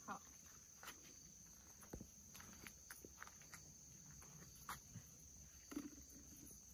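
Near silence: faint rustling and small snaps of tomato foliage and stems as cherry tomatoes are picked by hand, a few light ticks scattered through, over a faint steady high chirring of insects.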